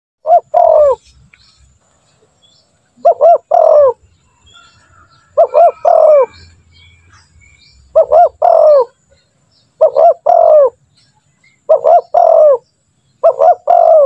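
Spotted dove cooing its repeated song, seven phrases about two seconds apart, each a short note or two followed by a longer, falling coo.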